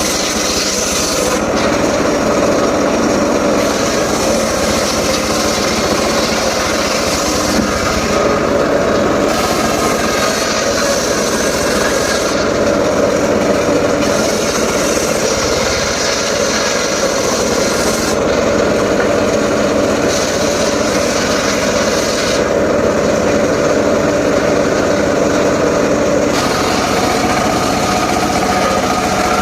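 An engine-driven saw runs steadily while cutting mahogany wood. The high cutting noise comes and goes in repeated passes of a few seconds each, over a constant engine hum.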